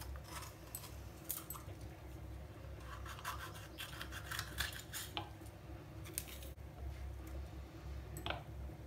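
Small kitchen knife cutting a green bell pepper held in the hand: faint, irregular crisp cuts and scrapes, over a low steady hum.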